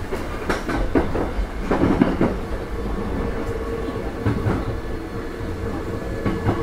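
Running sound of a Sanyo 5000 series electric train, heard from inside car KuMoHa 5010: a steady rumble with a held tone from the Mitsubishi MB-3020 traction motors, and wheels clicking over rail joints in clusters, around half a second in, around two seconds, just after four seconds and near the end.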